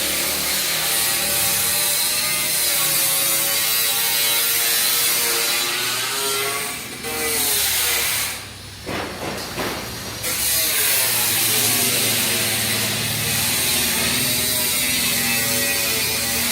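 A power tool grinding metal, running continuously with its pitch wavering as it works, stopping briefly about halfway through and then starting again.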